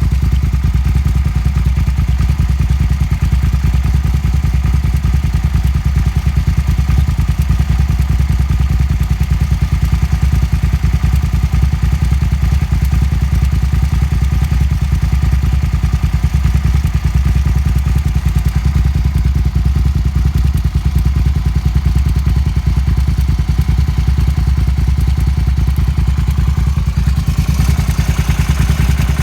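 Suzuki SV650's V-twin engine running steadily without revving, its exhaust pulses even, carrying the unidentified noise the owner calls weird. Near the end a higher, hissing layer joins.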